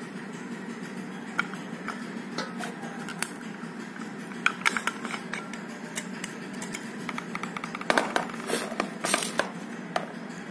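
Scattered light metallic clicks and taps from hands handling a replica Keihin PWK-style carburetor as it is taken apart and its float bowl is opened, with small bunches of clicks about halfway through and again near the end, over a steady low hum.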